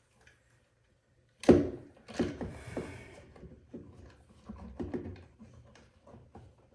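A sharp knock about one and a half seconds in, then rustling, scraping and scattered light clicks from hands working with electrical wires and a switch in a wall box.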